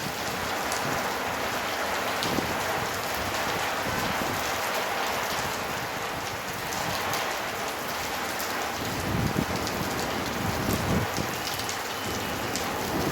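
Heavy rain pouring steadily, with scattered sharp ticks of drops striking, and a few low rumbles from about nine seconds in.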